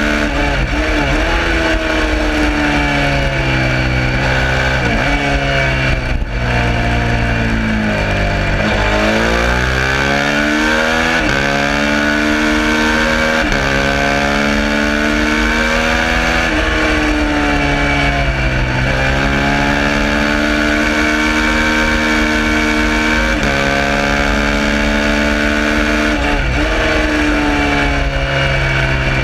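Suzuki SV650's V-twin engine at racing speed, its pitch climbing through the gears with a quick drop at each upshift, then falling in one long sweep as it downshifts about eight seconds in, and climbing again through the gears. Wind rushes over the microphone under the engine.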